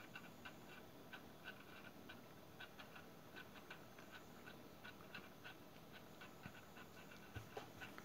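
Near silence with faint, quick, uneven ticking, several ticks a second, from the small solar-powered rotating display turntable as it turns.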